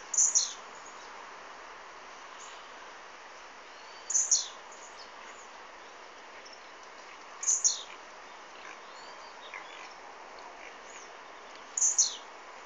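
Blue-black grassquit (tiziu) singing its short two-part song four times, a few seconds apart; each is a quick high note that drops off at the end. Fainter chirps come in between.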